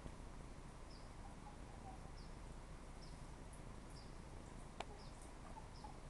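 Short high chirps repeating about once a second from a small animal, over a faint outdoor background, with a few fainter, lower chirps. A single sharp click about five seconds in.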